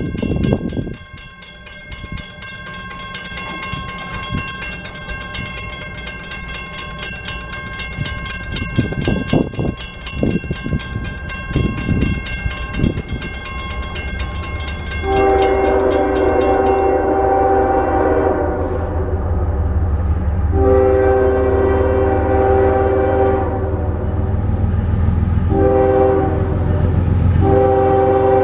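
Grade-crossing bell ringing rapidly, stopping about two-thirds of the way in once the gate arms are down. Over it, from about halfway, the horn of the approaching CSX ES44AH diesel locomotive sounds the crossing signal: two long blasts, a short one, then another long. The low rumble of the locomotive grows louder underneath.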